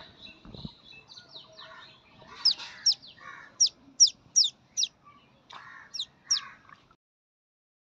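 Lesser whistling duck duckling peeping: after a faint start, about eight sharp, high peeps, each sliding downward, come in quick succession over a few seconds. The sound cuts off abruptly about a second before the end.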